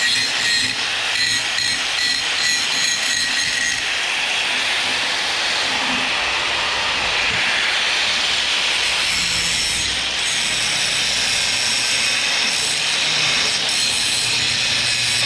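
Power grinder working against rusty steel, grinding down to bare metal to make a spot to weld to. Steady grinding noise over a high motor whine.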